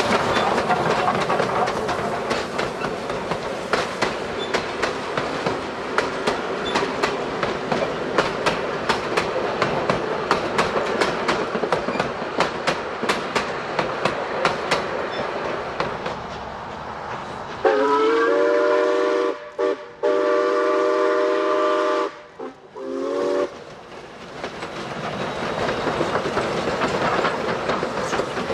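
Steam train running with a dense, rapid clatter of clicks over a steady rumble. About two-thirds of the way in, a steam whistle sounds three blasts, a shorter one, a longer one and a short last one, before the running noise swells back up.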